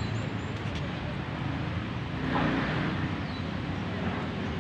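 Steady outdoor background rumble with no speech, swelling a little about two seconds in.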